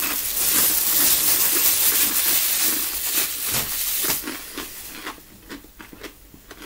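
Small plastic baggies rustling and crinkling loudly for about four seconds as chip pieces are tipped out of them, then fainter scattered crackles.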